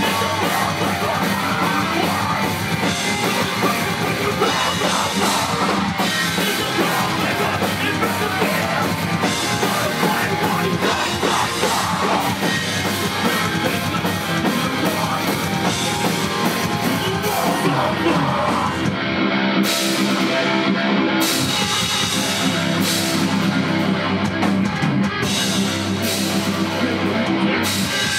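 Live rock band playing loud with electric guitars and a drum kit, with a short break in the cymbals about two-thirds of the way in.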